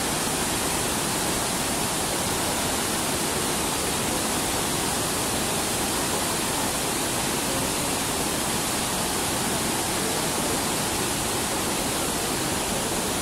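River rapids rushing: a steady, unbroken noise of churning whitewater.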